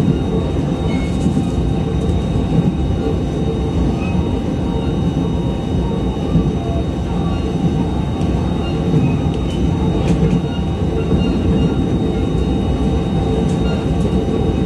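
JR East E129 series electric train running at speed, heard from inside the passenger car: a steady rumble of wheels on the rails with even loudness throughout.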